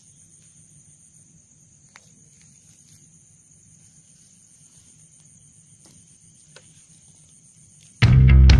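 Crickets trilling steadily in two high, even bands, with a few faint clicks. Near the end, loud guitar music starts abruptly.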